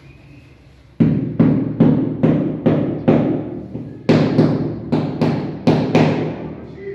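A run of about thirteen sharp hammer blows on tile work, roughly two and a half a second, in two bursts with a short break about four seconds in. The second burst is brighter.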